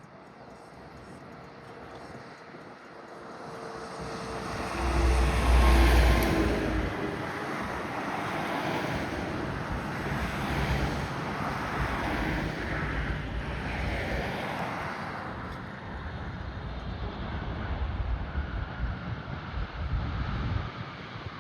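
Jet engine noise of a Boeing 777-300ER landing, its GE90 turbofans building to a loud peak about five seconds in as it passes, with a falling whine, then a steady rumble. Wind buffets the microphone.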